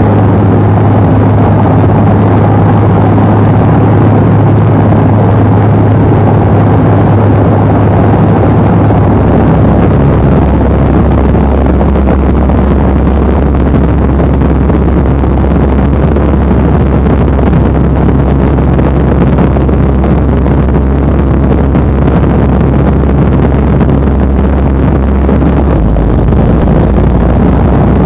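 Loud, steady in-flight cockpit noise of a light aircraft: rushing air with a low steady drone, whose pitch drops a step about nine seconds in and again near the end.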